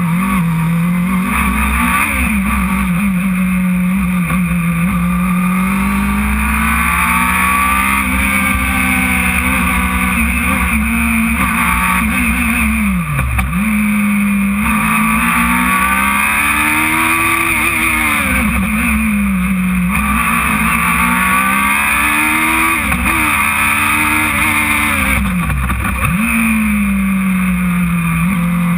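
Radical sports-racing car's engine heard from the open cockpit at speed, revving up and down through the gears as it brakes for corners and accelerates out, with a couple of deep drops in revs. Wind and road noise rush steadily beneath it.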